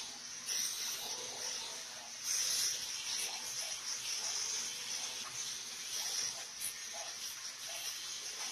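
Electric arc welding on stainless steel railing: a steady frying hiss that swells louder a couple of times.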